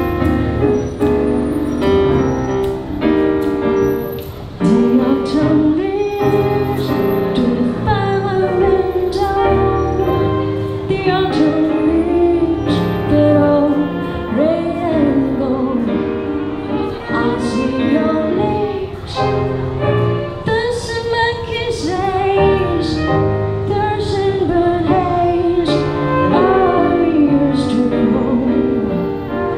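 A woman singing a slow song into a microphone with violin accompaniment, over held chords and a light regular beat.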